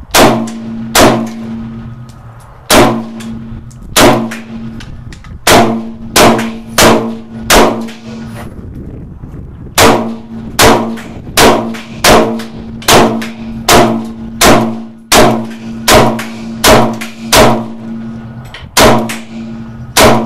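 AK-74 rifle firing 5.45×39 mm rounds semi-automatically: about twenty sharp shots, mostly in runs of a little over one a second with short pauses between runs. A low ringing tone hangs on between the shots.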